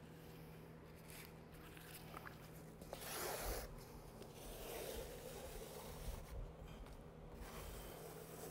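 Notched trowel scraping as it spreads wet self-leveling urethane concrete across a board, in faint repeated strokes that begin about three seconds in.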